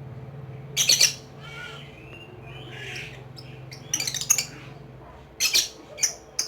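Lovebird giving loud, shrill, chattering calls in short bursts: one about a second in, a cluster around four seconds, and several quick ones near the end, with softer chirps between. A steady low hum runs underneath.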